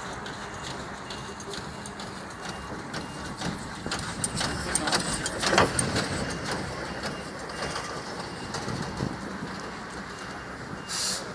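Small steam tank locomotive rolling slowly past, with scattered knocks and clicks over a steady noise, loudest about halfway through as it passes closest. A short sharp hiss comes near the end.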